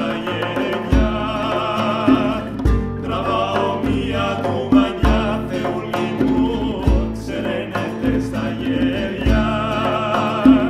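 Two male voices singing together over a baglamas and a classical guitar, with a hand-played frame drum giving a deep stroke about every two seconds.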